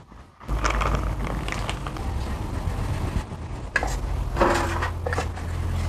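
Aluminium baking trays clattering a couple of times as they are handled on a stone counter, over a steady low hum with a rushing noise.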